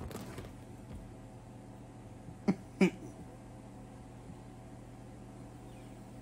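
Two short vocal sounds from a man, about a third of a second apart, a couple of seconds in, over a faint low steady hum.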